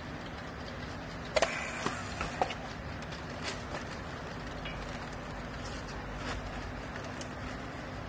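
Steady low machine hum under a few sharp clicks and knocks, clustered about one and a half to two and a half seconds in, with a few lighter ticks later: a battery strapping tool and plastic strap being handled on a compressed bale.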